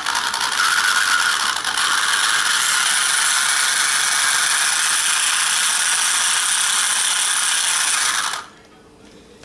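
Electric motor and gear transmission of an Axial SCX10 RC crawler running, its wheels spinning freely off the ground, with a steady ratcheting gear clatter that stops abruptly near the end.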